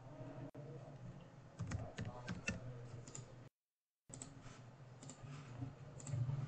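Faint keystrokes on a computer keyboard, a quick run of taps between about one and a half and three seconds in, with a brief cut to dead silence just past halfway.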